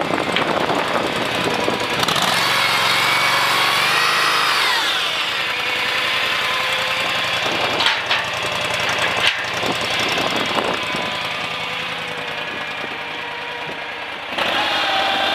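Engine of a CFG TK35R compact skid steer running. Its speed falls off about four seconds in, two sharp knocks come near the middle, and it revs up again near the end.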